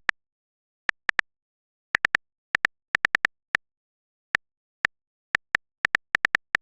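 Phone keyboard tap sound effect of a texting story: an irregular run of short, identical clicks, several a second, with brief pauses between flurries.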